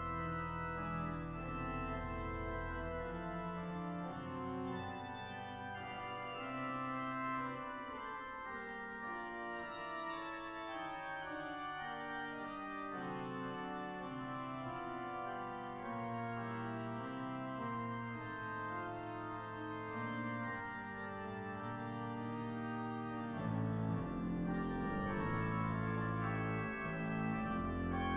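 Church pipe organ playing slow music in full sustained chords with moving inner lines. The deep pedal bass drops out about four seconds in and comes back near the end.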